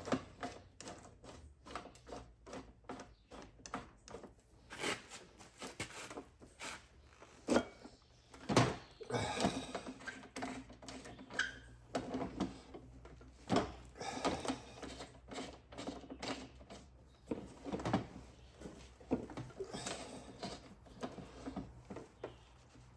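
Hand rivet-nut setting tool being tightened a little at a time to crimp a 1/2-inch steel insert into a running board: irregular metal clicks, creaks and knocks, with the loudest knock about nine seconds in.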